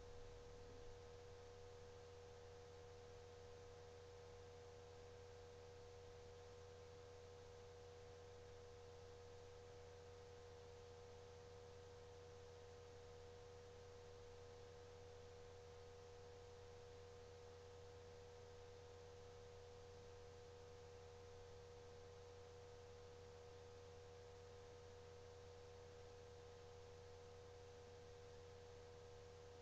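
Near silence: a faint, unchanging electrical hum with a thin steady tone over light hiss.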